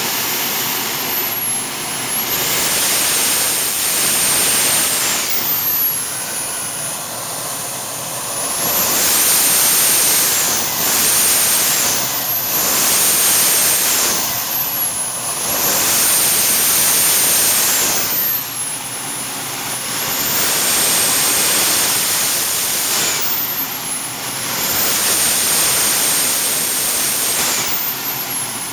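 Jets-Munt Merlin M100 model turbojet engine running on a test stand, throttled up and down several times. Each time a high whine rises and falls with the rotor speed over a loud rush of exhaust. At the top it turns about 110,000 to 115,000 rpm for roughly 20 lbf of thrust.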